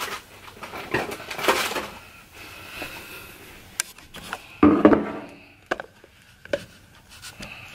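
A camera being handled and set against objects on a kitchen counter: scattered knocks, rubbing and clatter of things being moved, the loudest knock about five seconds in.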